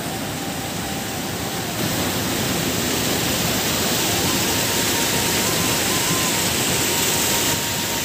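Muddy, flood-swollen river water rushing and churning through a rocky gorge: a steady, even rush that grows louder about two seconds in and eases back near the end.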